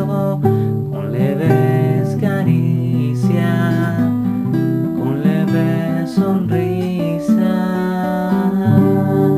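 Acoustic guitar music: chords strummed and plucked, one after another.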